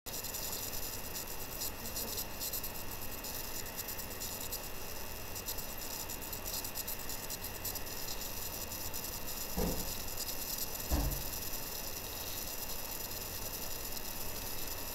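Steady background hiss with a low electrical hum and a thin high whine, typical of a computer recording's microphone picking up room tone. Two soft low thumps land about ten and eleven seconds in.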